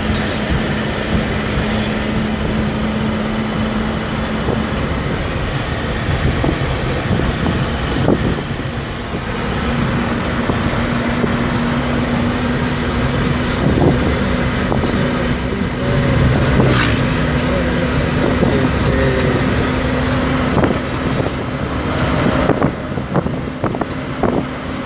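Inside a small vehicle driving on a road with the window open: the engine runs with a steady hum under loud road and wind noise. A few knocks and rattles come through, and the engine note rises a little about nine seconds in.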